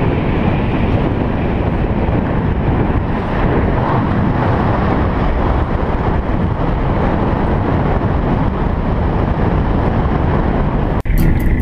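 4WD driving along a dirt bush track, heard from a camera mounted on the outside of the vehicle: a steady, heavy rumble of wind buffeting the microphone over engine and road noise. It cuts off abruptly near the end, and strummed acoustic guitar music starts.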